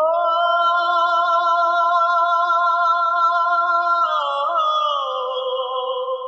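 Music: a sustained chord of held, slightly wavering notes, like a synth pad or drawn-out vocal, that slides down in pitch about four seconds in and then starts to fade.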